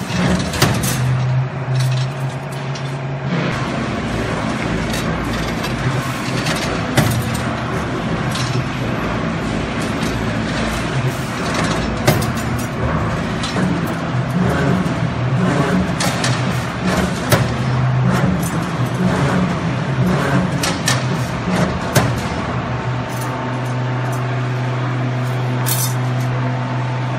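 CNC rebar stirrup bending machine running: a steady motor hum with irregular clicks and clanks as the steel bar is fed, bent and cut into stirrups.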